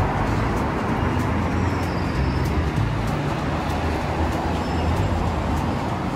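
Road traffic on a busy high street: cars and buses passing, a steady traffic noise with a low engine drone underneath.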